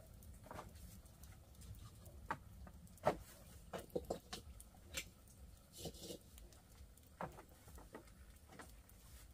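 Irregular light knocks and clicks of kitchen work, utensils and cookware handled while preparing food, over a low steady rumble.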